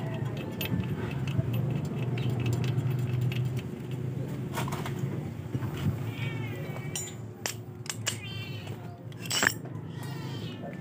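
Steady low hum with a few sharp metal clinks as the drain plug bolt is fitted into the motorcycle crankcase, and a cat meowing twice, about six seconds in and again near the end.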